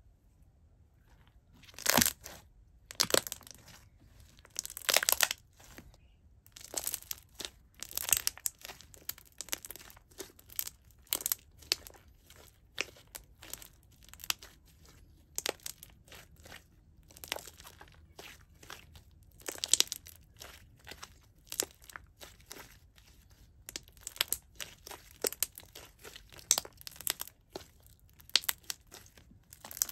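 Jiggly, watery milky-clear slime being squeezed, stretched and folded by hand, giving an irregular string of sharp wet clicks, pops and squelches. It starts about a second and a half in, after a quiet moment.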